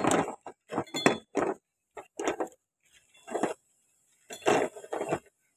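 Plastic foosball player figures and parts clinking and rattling against a steel rod as they are handled and fitted onto it, in a string of irregular clinks with short pauses between.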